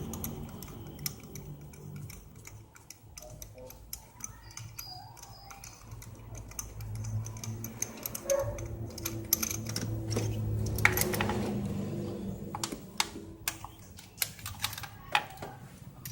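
Irregular sharp clicks and clinks of hand tools and engine parts being handled, over a low steady hum.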